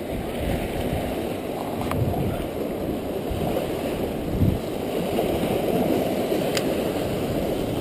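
Steady rushing of surf washing against jetty rocks, mixed with wind on the microphone, with two faint sharp clicks about two seconds in and near the end.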